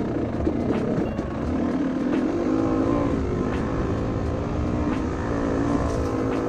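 Two-stroke engine of a 2007 Yamaha YZ250 dirt bike running under load, its pitch rising and falling as the throttle is worked along the trail.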